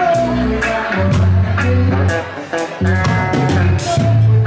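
Live reggae band playing: electric guitar, bass guitar and drum kit, with a steady beat of sharp drum hits over strong bass notes.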